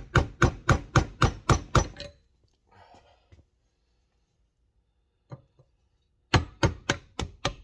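Steady hammer taps, about three a second, on a wooden dowel used as a drift to drive a stuck piston out of a cast-iron brake master cylinder. The taps stop about two seconds in and start again near the end.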